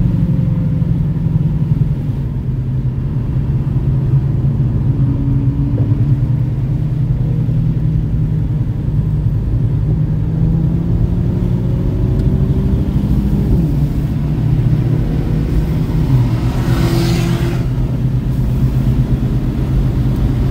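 Car engine and road noise heard from inside the cabin while driving on a race track, the engine held at fairly steady revs with small rises and falls. A short hiss about 17 seconds in.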